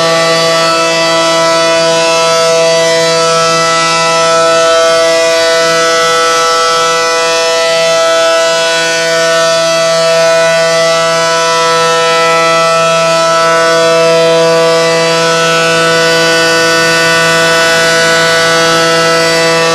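Allertor outdoor warning siren sounding a steady, loud single-pitch tone with many overtones, the pitch holding level without wailing. Its loudness swells and eases slowly every few seconds.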